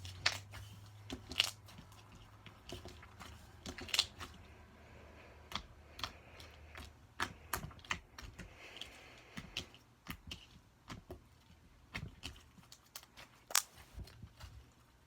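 Slime being squished and poked by hand, making irregular sharp clicks and pops, a few of them louder.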